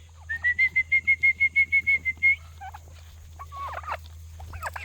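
Poultry calling: a rapid, even run of about fourteen short notes on one high pitch, lasting about two seconds. A few fainter short calls follow near the end.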